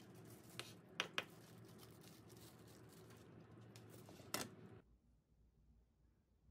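A kitchen knife knocking and scraping on a wooden cutting board as boiled pork is sliced: a few sharp knocks, two of them close together about a second in, over a steady low hum. Everything stops abruptly near the end, leaving near silence.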